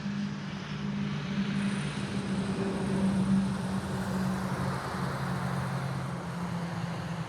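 A motor vehicle passing by: a steady low engine hum with tyre and road noise that swells and then eases off.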